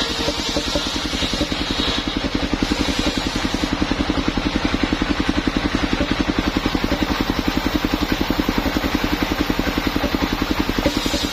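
Engine of a portable circular sawmill running steadily with a fast, even pulsing beat. The large circular blade hisses through a timber plank for the first couple of seconds, then spins without cutting, and starts cutting again near the end.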